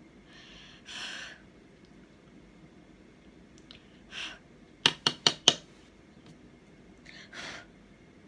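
Makeup brush tapped sharply four times in quick succession against an eyeshadow palette, about halfway through, with three short puffs of air spread around it.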